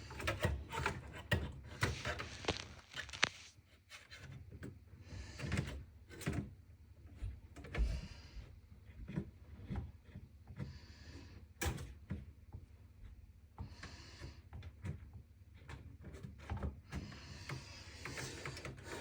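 Handling noises as a graphics card is worked into a desktop PC case: scattered clicks and knocks with scraping and rubbing of metal and plastic.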